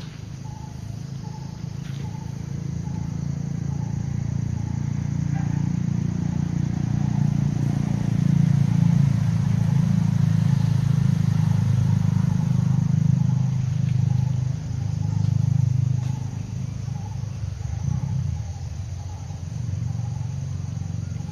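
A low engine rumble that swells over several seconds and then fades, like a vehicle passing. Over it runs a steady, faint chirping of about two pulses a second, like an insect.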